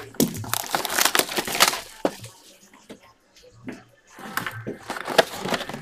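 Hands handling a 2023 Panini Prizm Draft Picks trading card box, its cardboard and wrapper rustling and crunching in two spells with a quiet pause of about two seconds between them.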